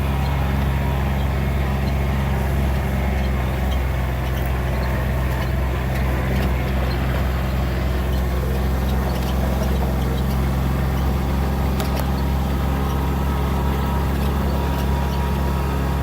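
Steady drone of a motor vehicle's engine with rumbling road noise, running evenly.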